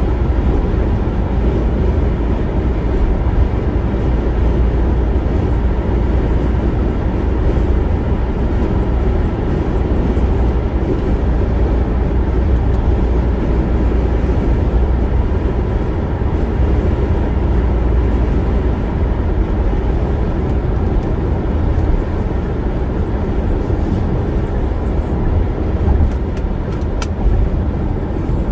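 A car driving at highway speed: a steady low rumble of tyres on the road and engine noise.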